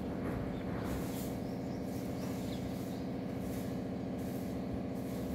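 Steady mechanical hum of an idling engine, holding one even pitch throughout.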